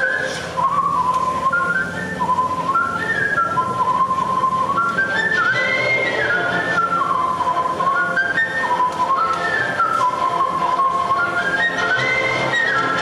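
A man whistling a melody into a microphone: quick runs of notes stepping up and down, over instrumental backing music.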